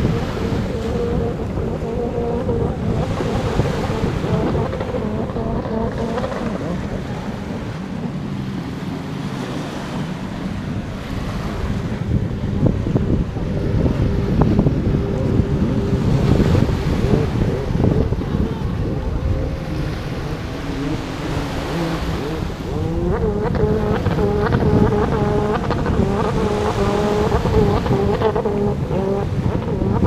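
Wind buffeting the microphone and small waves washing onto the sand, with a steady wavering drone of motorboat engines out on the water.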